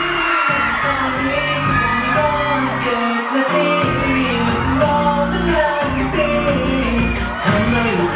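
Pop song with a sung vocal over a steady bass line.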